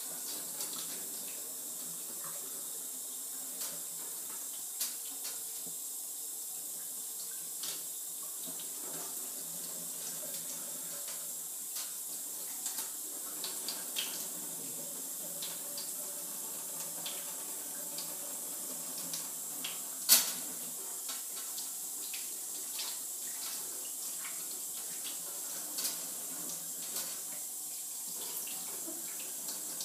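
Tap water running steadily into a stainless-steel sink and over hair as pink dye is rinsed out, with scattered small knocks and splashes. One sharp, louder knock comes about two-thirds of the way through.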